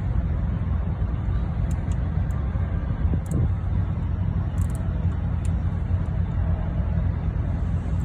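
Caterpillar 3406B inline-six diesel engine idling steadily, just after its torque and horsepower screws have been reset.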